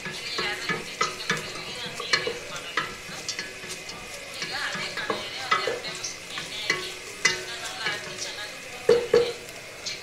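Wooden spatula stirring cooking onions in a steel pot: irregular scrapes and light knocks against the pot over a steady hiss, with two louder knocks close together near the end.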